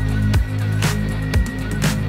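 Background music with a steady beat, about two beats a second, over held deep bass notes.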